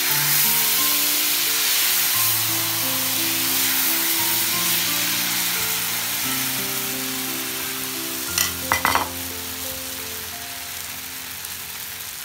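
Thin neer dosa rice batter sizzling loudly as it is ladled onto a hot non-stick pan, a strong hiss that slowly fades as the batter spreads. A few short clinks come about eight and a half seconds in, over soft background music.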